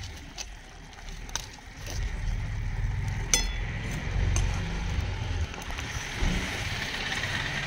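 Steel ladle stirring thick frying masala in an aluminium kadai, scraping and clicking against the pan, with one sharp ringing metal clink about three seconds in. A low rumble runs underneath.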